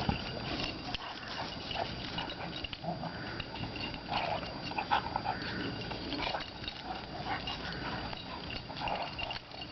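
Two dogs play-fighting, making short, uneven bursts of dog vocal noise as they wrestle, with the busiest stretch near the middle.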